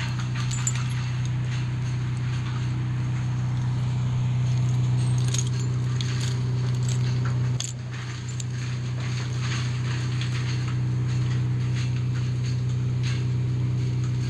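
An engine running steadily with a low hum, easing off briefly about halfway through, with light rattles and clicks over it.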